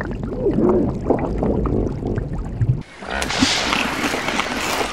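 Water sound effects: a gurgling, bubbling stretch with a short wavering tone in it, then about three seconds in a sudden change to a loud, hissing splash and rush of sea water.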